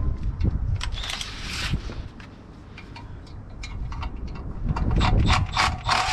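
Scattered clicks and knocks of hand tools and parts handled on metal, with short scraping noises and a low rumble that eases off in the middle and returns near the end.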